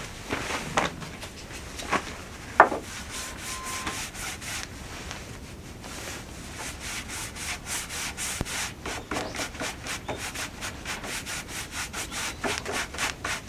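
Repeated rubbing strokes on a wooden baseboard: a few separate strokes at first, then a quick even back-and-forth of about four strokes a second from about halfway through.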